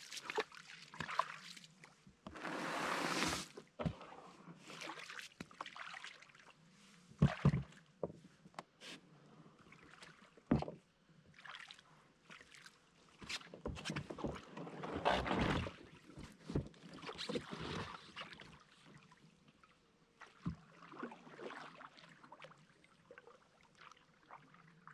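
Solo Old Town Pack canoe being loaded and put in the water: irregular knocks of gear and paddle against the hull, with water splashing. A longer rushing scrape comes about three seconds in, and there is a cluster of louder knocks around the middle.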